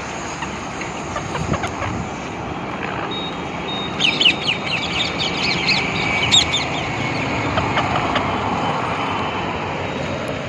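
Parrot calling: a quick run of sharp, high, falling chirps from about four to seven seconds in, over a steady background rumble.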